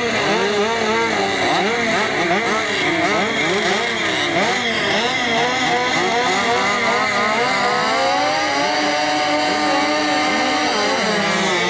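Several 80cc junior speedway motorcycles revving at the start gate, their riders blipping the throttles so the engine notes rise and fall over one another. From about eight seconds in the revs are held steadier, as the riders wait for the start.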